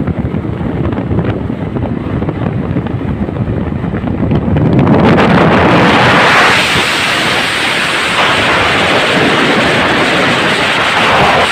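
Wind rushing hard over a phone microphone held at the window of a moving vehicle, with the vehicle's running noise underneath. About five seconds in, the rush grows louder and hissier.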